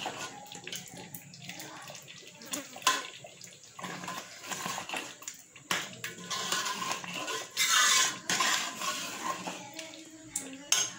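Metal ladle stirring and mashing potatoes in a watery curry in a metal pot: wet sloshing and squelching with scraping against the pot, and a few sharp clinks of the ladle on the pot, the loudest stretch about three-quarters of the way through.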